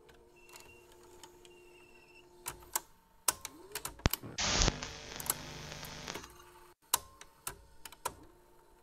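Sound effects of a VHS video cassette recorder: a run of mechanical clicks and clunks from the tape transport, with short whirs rising in pitch. Near the middle there is a burst of static hiss lasting under two seconds, the loudest part.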